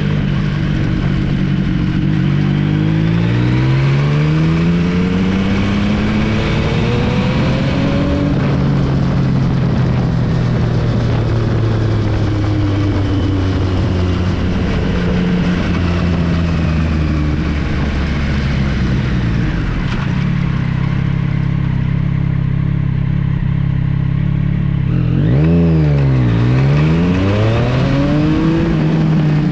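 Yamaha MT-09 SP's three-cylinder engine through an Akrapovič exhaust while riding: the engine note climbs in pitch over the first several seconds, then holds fairly steady, and near the end drops sharply and rises again.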